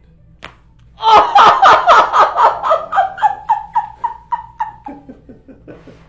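A single sharp neck crack from a chiropractic neck adjustment, then a woman's loud, high-pitched burst of laughter: about four or five pulses a second, slowing and falling in pitch over about four seconds.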